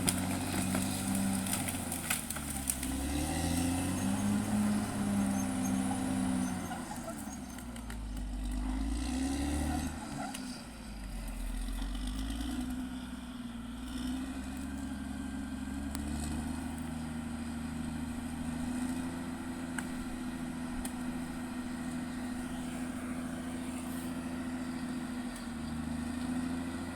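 Caterpillar D6R XL bulldozer's diesel engine working, its pitch rising and falling with changing load through the first ten seconds or so, with a few sharp clanks in the first seconds. It then settles to a steady, even run.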